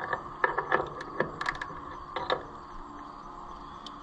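Scattered metal clinks and taps of a hand wrench being fitted onto bolts and fittings on a tractor's hydraulic coupler bracket, with a quick run of sharp clicks about a second and a half in, over a steady faint hum.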